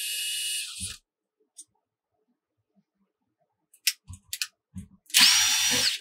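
Cordless drill-driver with a Phillips bit backing out the mounting screws of an electrical outlet: one run stops about a second in, a few light clicks and knocks follow, then a second, louder run near the end that winds up and back down.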